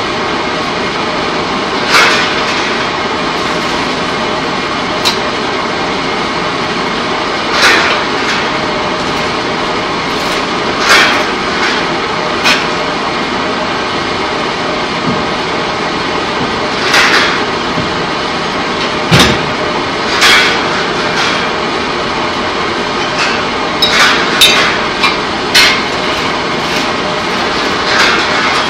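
Steady loud din of pipe-coating plant machinery, broken every few seconds by sharp, irregular knocks and clangs. The heaviest comes about two-thirds of the way through, with a deeper thud.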